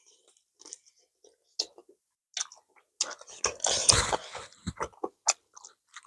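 Close-miked eating of banku and okra stew: wet chewing and lip smacks in short separate clicks, with a louder, denser stretch of eating noise about three seconds in that lasts about a second.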